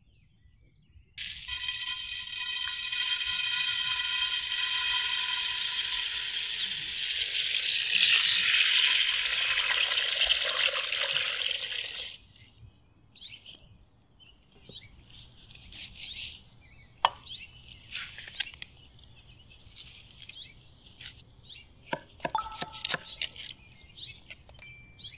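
A loud steady hiss with several held tones over it, from about a second in until it cuts off about twelve seconds in. After that, a knife cutting up a raw chicken on a wooden board, with a few sharp knife knocks, and birds chirping.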